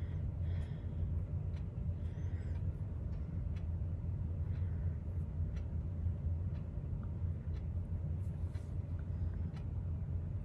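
A steady low hum, with a few faint light clicks scattered through it.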